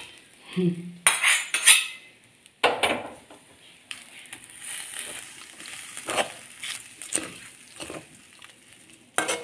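Steel spoon stirring and scraping a dry banana-flower stir-fry around a metal kadai. About seven irregular clinks and knocks come as the spoon hits the pan's side and rim.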